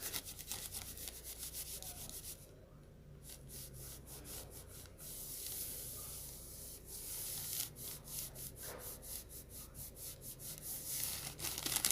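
Mini heat press plate rubbing and scraping over butcher paper laid on a t-shirt, with many small irregular clicks, while a heat transfer is being pressed.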